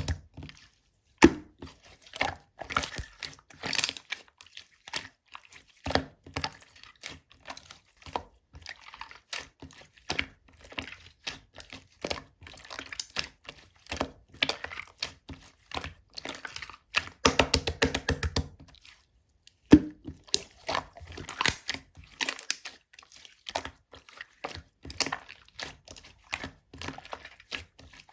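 Dark purple slime being squeezed, stretched and pressed by hand, giving off sharp clicks and crackling pops in quick runs, with a few louder single snaps.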